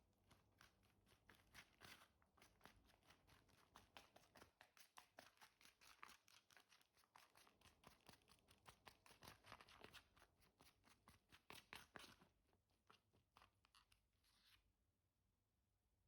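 Quiet, rapid crunching and tearing sounds, several a second, thinning out and stopping a little before the end.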